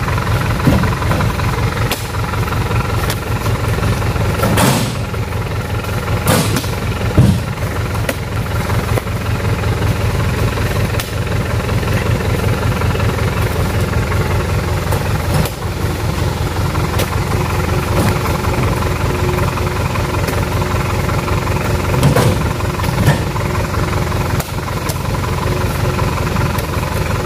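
Pick-up truck engine idling steadily, with a few sharp thuds as oil palm fruit bunches are thrown into its cargo bed.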